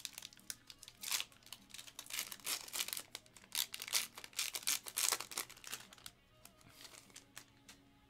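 A gold foil trading-card pack being torn open and crinkled by hand, a dense run of crackling rips for about six seconds that then dies down. Quiet background music underneath.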